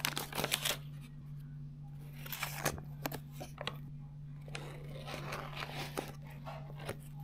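Foil butter wrapper crinkling and tearing in several bursts of rustle and crackle as a block of butter is unwrapped and a table knife cuts into it, with the knife brushing the wrapper. A steady low hum runs underneath.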